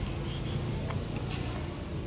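Plastic water bottle holding dry cat food, batted by a cat's paw on a wooden bench: a brief scratchy crinkle of the plastic about a third of a second in and a faint tick later, over a steady low background rumble.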